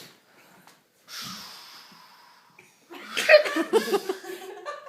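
A breathy hissing whoosh begins about a second in and fades away over a second and a half: a mouth-made rocket blast-off sound effect. From about three seconds in, laughter follows.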